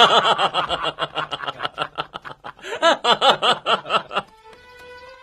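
Laughter in quick ha-ha bursts, about five or six a second, that stops about four seconds in; soft music with held notes follows.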